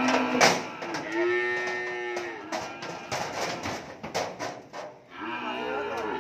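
Cattle mooing: one long moo about a second in and another near the end. In between come sharp knocks of hooves on the steel loading ramp as a young cow climbs into a truck.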